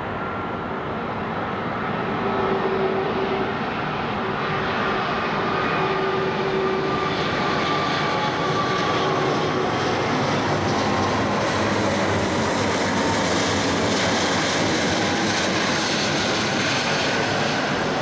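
Airbus A340's four jet engines passing low overhead on approach with landing gear down: a steady jet rush that swells over the first few seconds and then holds. Faint whining tones slowly fall in pitch as it goes by, and the hiss grows brighter as the plane passes overhead.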